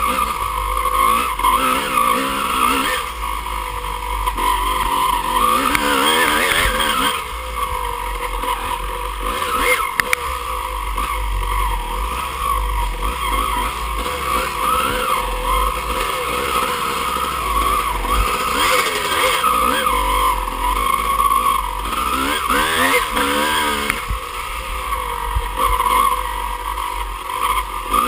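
Off-road dirt bike engine ridden hard, its revs constantly rising and falling with the throttle, with wind rumbling on the helmet-mounted microphone.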